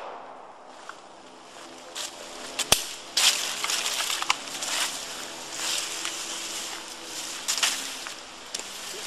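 Footsteps crunching through dry fallen leaves, with irregular rustling from about two seconds in and one sharp click shortly after.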